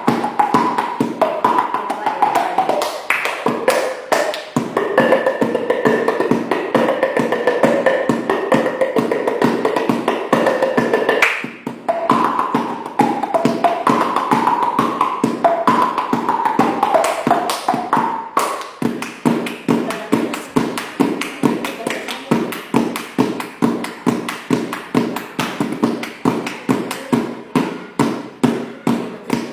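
Rapid rhythmic clicking, several clicks a second, with a wavering voice-like tune over it. The tune holds a steady high note for a few seconds and then breaks off sharply. In the last third only the clicks go on, as an even, steady beat.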